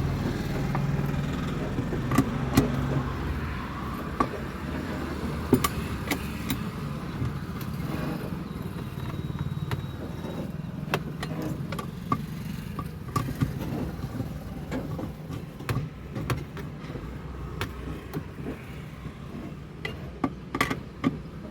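Scattered metallic clicks and knocks of hand tools as bolts are tightened during a gear-shift cable replacement, with a cluster of sharper knocks near the end, over a steady low hum.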